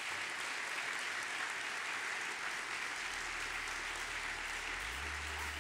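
A large banquet-hall audience applauding an award announcement, a steady dense clapping. Low steady bass tones come in about halfway through and grow stronger near the end.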